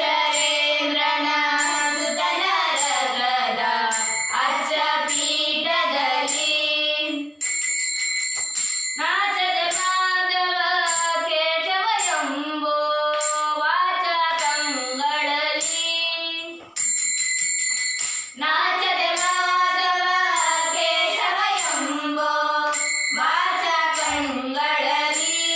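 Children singing a Hindu devotional bhajan together in long melodic phrases, with short breaks between phrases. Small hand cymbals ring out on a steady beat throughout.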